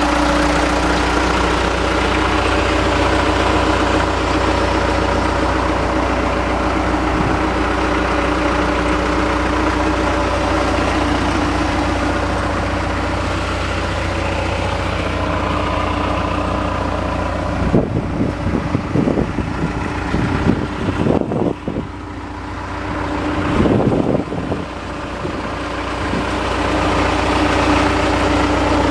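John Deere 310SE backhoe's diesel engine idling steadily. A little past halfway, the low drone drops away for several seconds and uneven knocks come through, then the steady idle returns.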